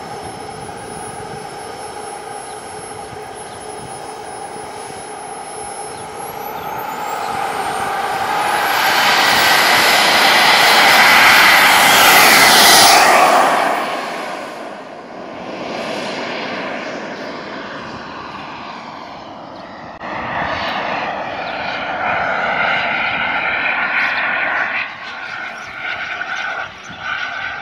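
Radio-controlled MiG-29 scale model jet's engine whining steadily, the pitch rising from about six seconds in as it spools up for takeoff. It is loudest around twelve seconds in during the takeoff run, then fades and swells again as the jet flies.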